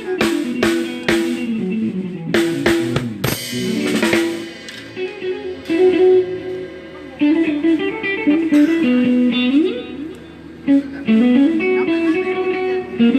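Live Isan-style music: an electric plucked-string instrument plays a busy melody with pitch slides, with drum hits clustered in the first few seconds.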